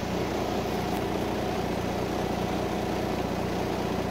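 Engine of a 1988 International converted school bus idling steadily, heard from inside the driver's cab.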